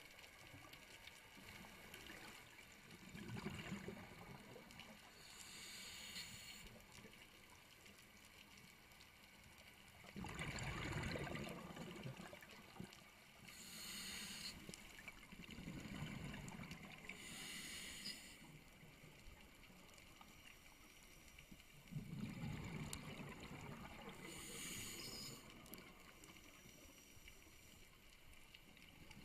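Scuba diver breathing through a regulator, heard underwater: about four breath cycles, each a short hiss of inhaled air followed by a longer low bubbling of exhaled air.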